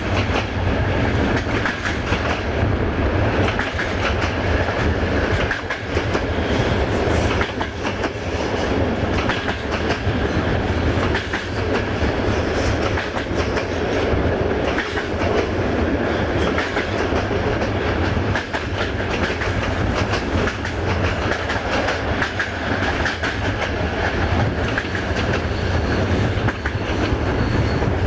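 Railway passenger coach running along the track: a steady rolling rumble with the wheels clicking over rail joints.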